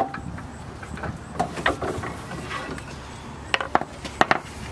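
Hammer tapping on a CV axle during replacement: about eight sharp, irregularly spaced knocks, the loudest at the very start.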